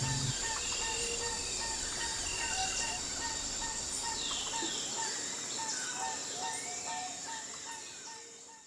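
Forest ambience of insects trilling and birds chirping, fading out towards the end.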